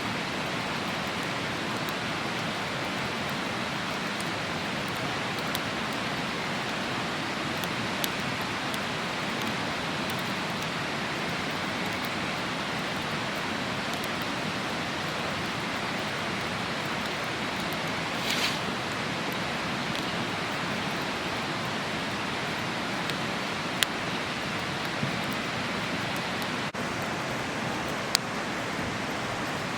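Steady rushing of a river, with a campfire crackling now and then: a few sharp pops stand out, and one brief louder burst comes about two-thirds of the way in.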